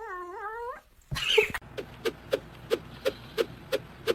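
A cat's long, wavering yowl, which ends about a second in. After a short noisy burst comes an even series of sharp clicks, about three a second.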